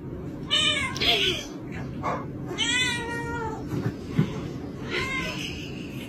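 A cat meowing three times, about two seconds apart.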